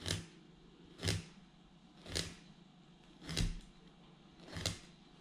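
Kitchen knife scoring a crucian carp crosswise on a wooden cutting board, each stroke cutting through scales and flesh down to the bone. Five sharp cuts, about one a second.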